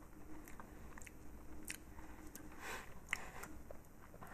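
A person quietly chewing a bite of soft sponge cake with chocolate filling, with scattered small mouth clicks.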